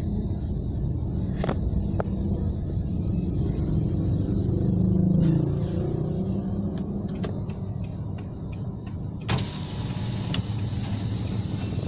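Inside a moving car on a wet road: a steady low rumble of engine and tyres, with scattered light ticks. About nine seconds in, a brighter hiss comes in suddenly and stays.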